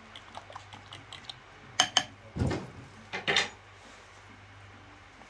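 Metal ladle clinking against a glazed ceramic bowl as soup is served. There are two sharp clinks about two seconds in, then a duller knock and a short clatter.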